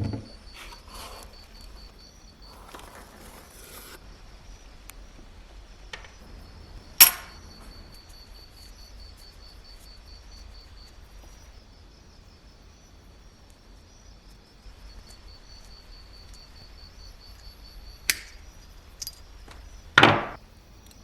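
A few sharp clicks: a loud, bright one about seven seconds in, two lighter ones later, and a fuller one near the end, over a faint steady high chirping.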